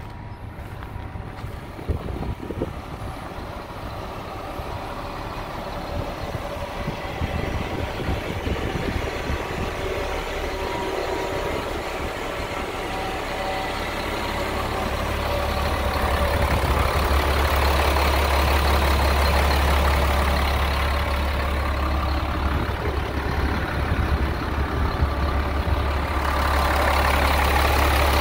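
1999 Kenworth grain truck's diesel engine running steadily, its low rumble growing louder from about halfway through.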